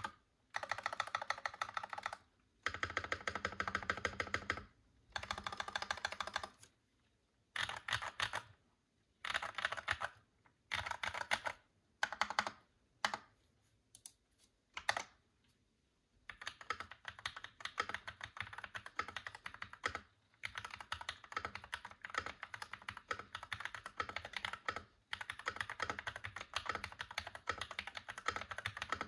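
Royal Kludge RK84 mechanical keyboard with lubed Glorious Panda tactile switches, PBT keycaps and a foam-dampened case, typed on fast. The typing comes in bursts of keystrokes with short pauses, then runs almost without a break through the second half.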